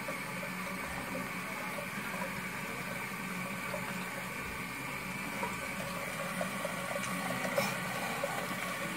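Steady rush of water running from a bathroom tap into the sink, with faint scrubbing of a manual toothbrush on teeth.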